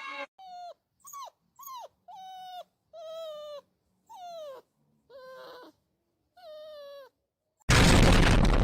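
A dog whimpering in a series of about eight short yelps, each falling in pitch, with short silences between. Near the end a loud burst of noise cuts in and begins to die away.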